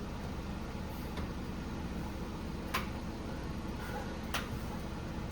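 A few light knocks, about three spaced a second or more apart, as a microwave door is bumped in repeated attempts to push it shut, over a steady low hum.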